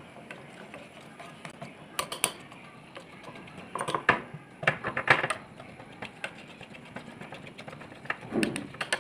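Metal spoon stirring a wet paste of coffee powder and gram flour in a ceramic bowl, scraping and clinking against the bowl's sides in short spells a few times.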